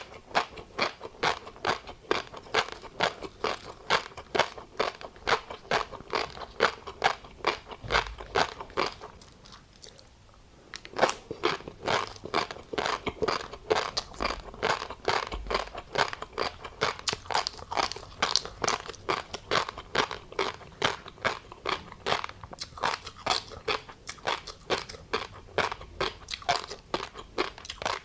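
Close-miked chewing of tobiko (flying fish roe), the eggs popping and crunching between the teeth in a quick run of crisp clicks, about three a second. There is a brief pause about ten seconds in.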